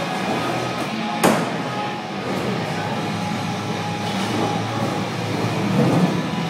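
Skateboard wheels rolling over the wooden skate bowl's surface in a steady rumble, with one sharp clack from the board a little over a second in.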